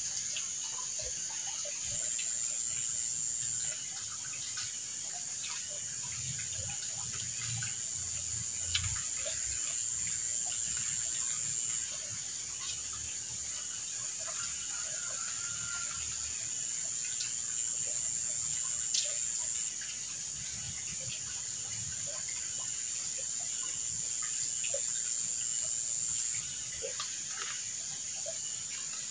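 A steady, high-pitched insect chorus with layers that start and stop every few seconds, under faint clicks and rustles of hands eating from leaves.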